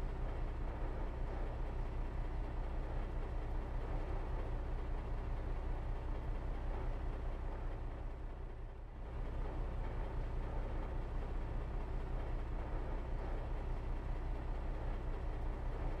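Steady low mechanical rumble, dipping briefly about nine seconds in.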